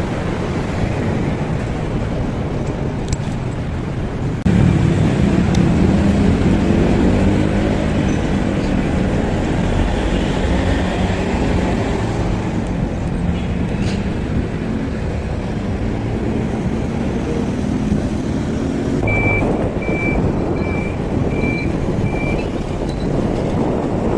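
Road traffic and wind rumble heard from a moving bicycle, with a motor vehicle's engine running close by and louder from about five seconds in. Near the end, five short high beeps at an even pace of about two a second.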